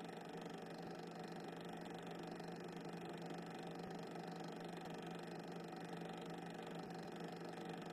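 Steady low hum with an even hiss, unchanging throughout; no train sound is heard, only the background noise of a soundless cine-film transfer.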